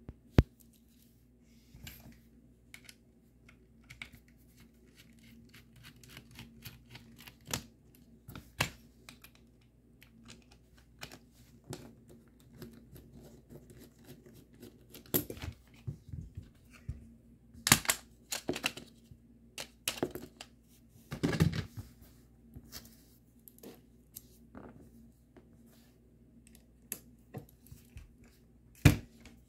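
Hand work on a King Arms airsoft rifle's metal rail handguard with a small precision screwdriver: scattered clicks, taps and scrapes of tool and parts, with a few louder clattering knocks in the middle.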